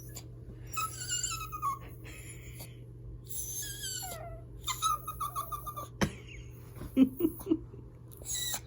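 A hungry pet making strange high, thin calls in short runs, each sliding down in pitch, with a sharp click about six seconds in and a few low short sounds just after. The calls are him begging for food.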